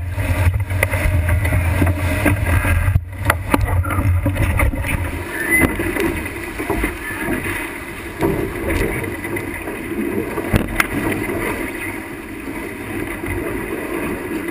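Wind buffeting the microphone and water rushing past a sailboat heeled hard and driving through rough water, with spray hitting the deck and several sharp knocks. The heavy low wind rumble eases about five seconds in.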